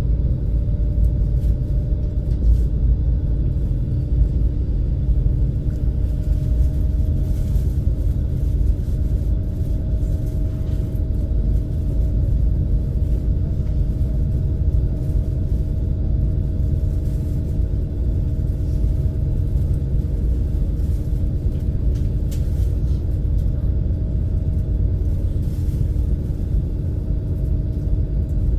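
Steady low rumble of a high-speed passenger ferry's engines heard inside its cabin while under way, with a steady two-tone hum over it; the higher tone rises slightly in the first second.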